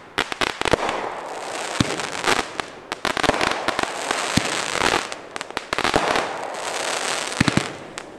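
Shogun Epic Battle 500-gram fireworks cake firing: a rapid series of sharp shots and bursts over dense crackling from its crackling mines and stars, fading near the end.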